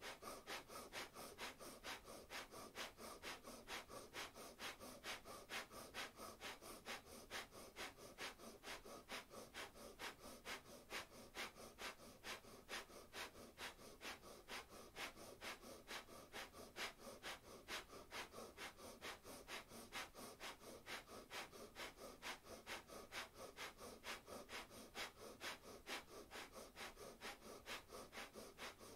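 Breath of fire: a person breathing rapidly and rhythmically through the nose, short sharp exhales at about three breaths a second, faint and unbroken.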